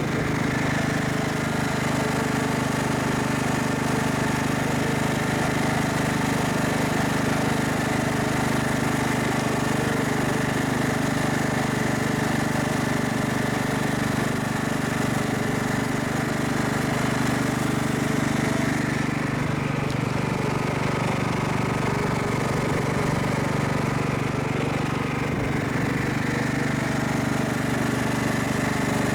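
Craftsman riding lawn mower engine running steadily under load while it tows another riding mower.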